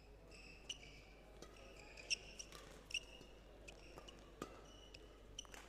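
Badminton rally: sneakers squeaking sharply on the court floor, mixed with the sharp ticks of rackets striking the shuttlecock several times.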